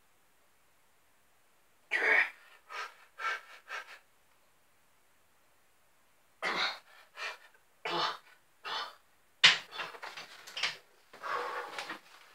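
A man breathing hard in short, forceful gasps and exhalations while straining through an exercise set, coming in groups with quiet pauses between and growing more frequent in the second half.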